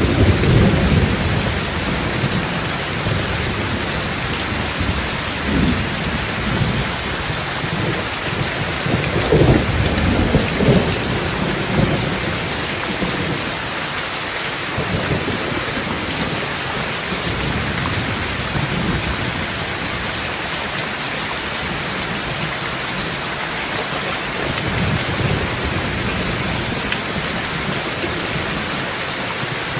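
Steady heavy rain with thunder rumbling, strongest near the start and again about ten seconds in, with a softer roll near the end.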